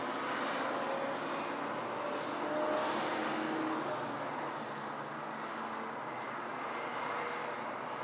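Distant city traffic noise, a steady hum with a passing engine swelling a little about three seconds in.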